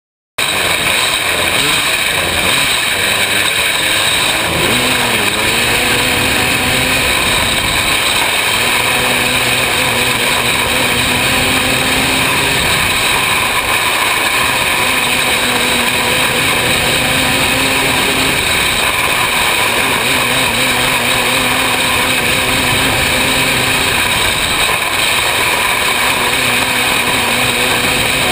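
Open 500cc winged sprint car's engine running hard at racing speed, heard on board. The engine pitch falls and rises again and again through the laps under heavy wind and track noise. The sound cuts in suddenly just after the start.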